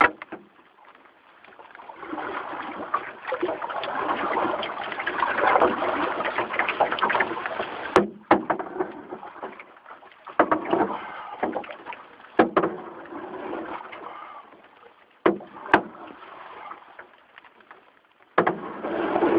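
Handling noise from a handheld camera held against a person's hand and clothing: several seconds of rustling and rubbing, then a string of sharp knocks and bumps.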